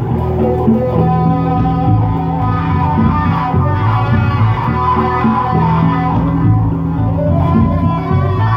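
Electric guitar played through an amp: a continuous riff of sustained, ringing notes, mostly in the low register, changing pitch every fraction of a second without a break.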